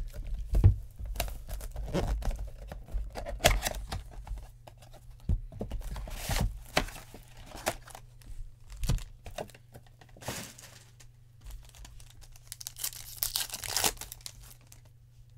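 Plastic wrapping on a box of trading cards and its packs being torn and crinkled by hand, with many sharp clicks and scrapes as the box and packs are handled. A longer tearing rip comes near the end.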